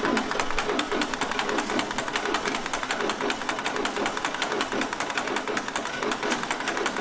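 John Deere B's two-cylinder engine being cranked over steadily with a rhythmic chug about twice a second, without firing. It is a failed start attempt after the ignition work on its magneto and plug leads.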